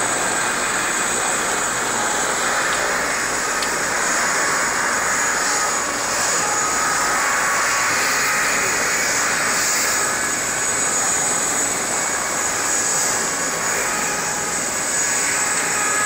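Helicopter turbine engine running steadily with a continuous high whine.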